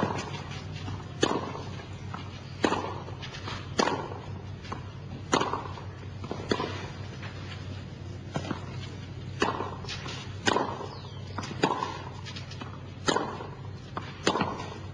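Tennis rally: a ball struck back and forth by rackets, about a dozen sharp hits roughly one every 1.2 seconds, with lighter bounces between them, over a steady low hum.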